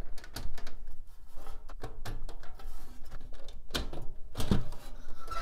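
Plastic front faceplate of an eMachines eTower being pried off its steel case, its plastic clips working loose: a run of scattered clicks and knocks, with two louder knocks about four seconds in.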